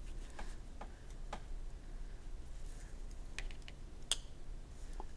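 Light, scattered plastic clicks and taps from a hand-posed action figure being handled and adjusted, with one sharper click about four seconds in.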